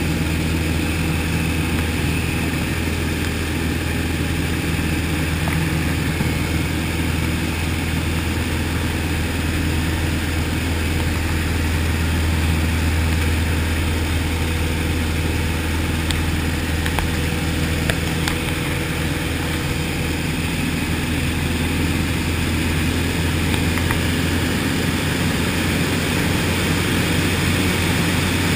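Light aircraft's piston engine and propeller heard from inside the cockpit in flight: a loud, steady low drone that changes little in pitch during the aerobatic manoeuvres.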